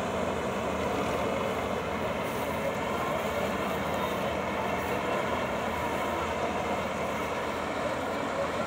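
Self-propelled combine harvester working a field, its engine and threshing mechanism running with a steady drone as it throws out straw.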